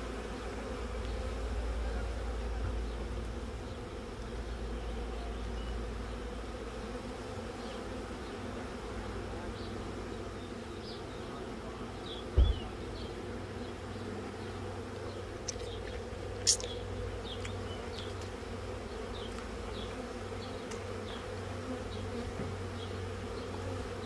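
Honeybees buzzing steadily around an open hive, a dense hum from the colony. A dull knock about halfway through and a sharp click a few seconds later.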